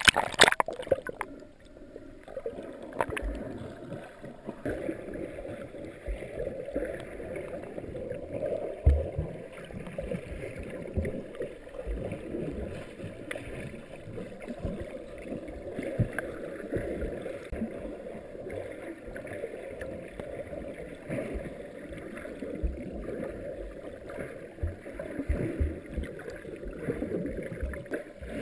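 Muffled underwater sound through a sealed GoPro dive housing: a loud splash-like burst as the camera goes under, then a steady low gurgling rush of moving water with scattered low thumps.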